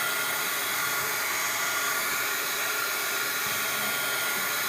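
Hot-air blower running steadily, an even blowing hiss with a thin steady whine in it, heating an iPod Touch screen to soften the adhesive holding it.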